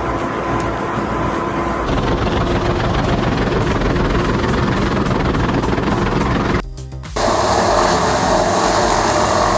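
Heavy wood-processing machinery running loudly, with a brief dropout about seven seconds in, after which a different machine's steady engine sound takes over.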